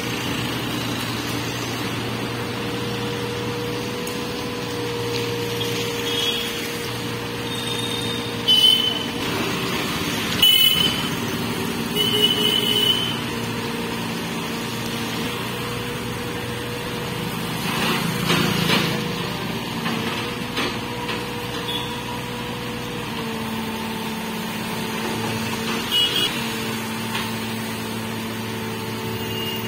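Tata Hitachi mini excavator's diesel engine running steadily as it climbs onto a truck bed, its hum shifting in pitch now and then as the machine is worked. Several short, high horn beeps from passing traffic come in the first half, and a brief louder rush comes about eighteen seconds in.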